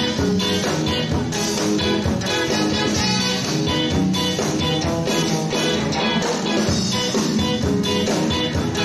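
Live ska band playing: trumpet and saxophone with electric guitar over a steady beat.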